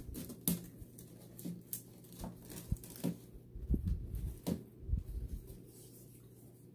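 Artificial flower stem and thin wire being handled: irregular rustles and light clicks, thinning out after about five seconds.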